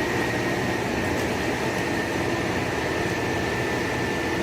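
Forestry harvester's engine running steadily, with a steady high tone above the low hum.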